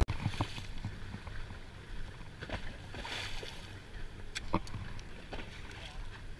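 Lake waves washing and splashing against a concrete pier wall, with wind on the microphone, the wash swelling about halfway through. A few light clicks near the end as a spinning reel is handled.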